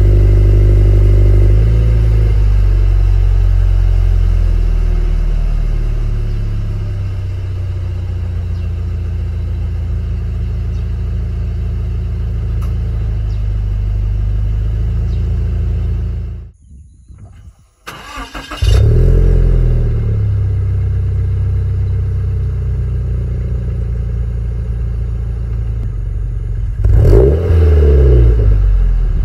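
Toyota 86's 2.0-litre flat-four idling through a TRUST GReddy Comfort Sports GT-S Ver.1 aftermarket exhaust, its idle easing down in steps over the first few seconds. After a short break it comes back suddenly with a flare of revs that falls back to idle, and near the end a quick free-rev blip rises and falls.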